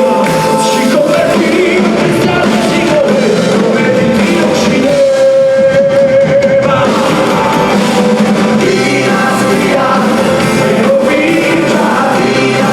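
Loud live band music with singing, one long held note in the middle.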